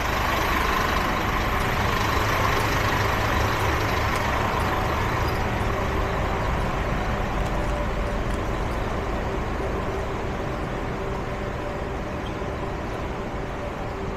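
Road traffic: a heavy vehicle's engine running close by with a low rumble, slowly fading away.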